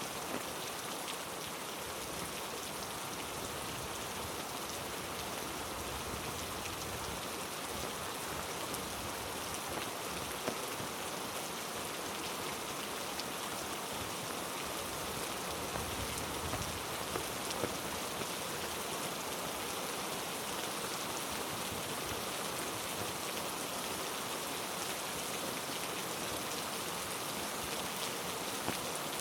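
Heavy rain falling: a steady hiss with scattered louder drops.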